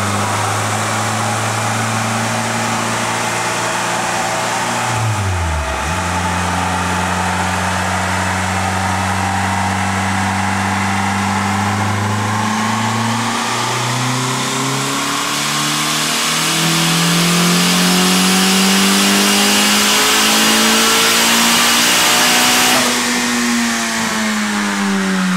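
Built Honda DOHC VTEC four-cylinder in an Acura Integra running on a chassis dyno. It holds steady revs, with a brief sharp dip and recovery about five seconds in. Then comes a long climb in revs through a dyno pull, until the throttle is lifted about three seconds before the end and the revs fall away.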